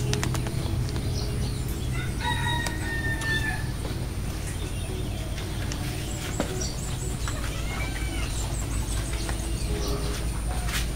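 A long, held animal call about two seconds in, and a shorter call that rises and falls near eight seconds, over a steady low hum and scattered light clicks.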